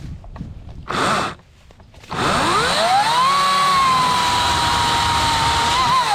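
Ryobi 40-volt brushless electric chainsaw: a short blip of the motor about a second in, then the motor spins up with a rising whine and runs at a steady high whine, wavering briefly near the end.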